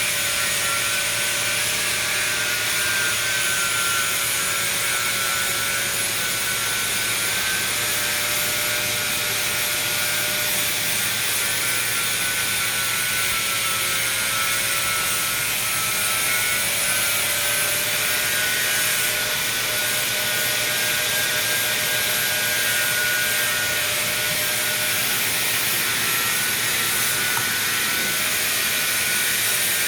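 Restored High Speed Hammer Company AF-7B high-speed drilling machine running steadily: a high whine made of several tones over an even hiss, its pitch wavering slightly.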